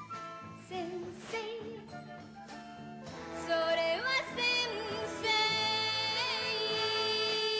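A female singer performing a Japanese pop song (kayōkyoku) with band accompaniment. The music grows louder about three seconds in, and a long held note runs through the second half.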